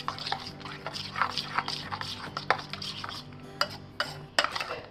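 A metal spoon stirring a thick yogurt marinade in a small stainless steel bowl, clicking and scraping against the bowl's sides in quick, irregular strokes.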